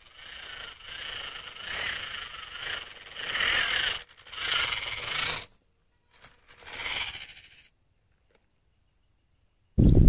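Losi Trail Trekker RC crawler truck's electric motor and gears whining in uneven spurts as it crawls over dirt, with scraping and rubbing from its tyres on the soil. The sound cuts to silence twice, and a sudden loud low rumble starts just before the end.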